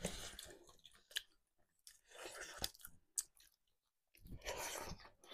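A person chewing food close to the microphone, in three short bouts, with a few sharp small clicks in between.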